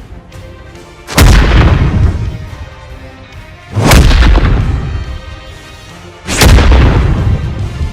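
Cinematic superhero fight sound effects: three heavy designed impacts, each a sharp hit followed by a deep booming rumble that fades out, spaced about two and a half seconds apart.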